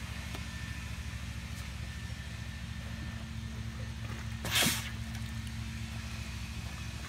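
A single short, sharp puff as a blowgun dart is blown out of the tube into the water, about four and a half seconds in. A steady low hum runs underneath.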